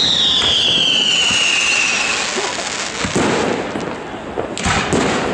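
Aerial fireworks display: a whistle falling steadily in pitch for about two seconds, then two shell bursts about three and four and a half seconds in, the second louder.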